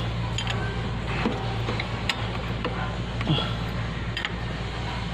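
Open-end wrench on an exposed camshaft turning the engine over by hand, with irregular metallic clicks and ticks from the wrench, cam and timing chain, over a steady low hum. The engine is being turned to check that it is not stuck before the loose timing chain is adjusted.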